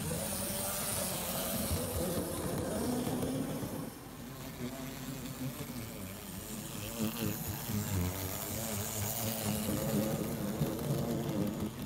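Märklin Z scale model train running on the track: a small electric motor whirring and wheels rolling over the rails, louder as the coaches pass close near the end.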